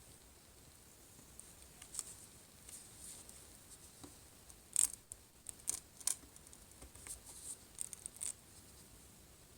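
Faint, scattered ticks and scrapes of a Samsung Galaxy S4's glass screen being slowly prised and peeled off its adhesive. The loudest comes about five seconds in, followed by a run of smaller ones.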